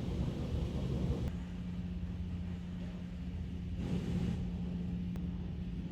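Steady low rumble of a car with a constant low hum, as heard from inside the vehicle; the higher-pitched noise eases off after about a second.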